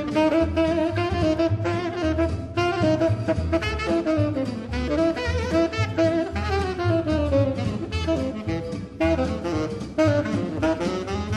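Instrumental background music: a melody line over a steady bass.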